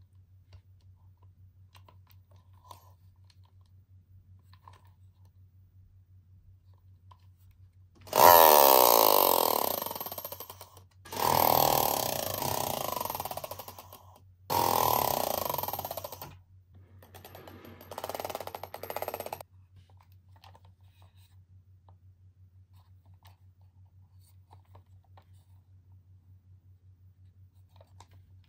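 Toy monster truck whirring in four bursts over about eleven seconds, each one sliding down in pitch as it runs down.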